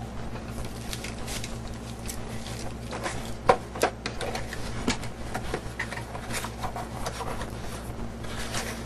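Hands handling a cardboard box and plastic-wrapped items on a wooden table: scattered rustling, crinkling and light taps, with two sharp knocks about three and a half seconds in. A steady low electrical hum runs underneath.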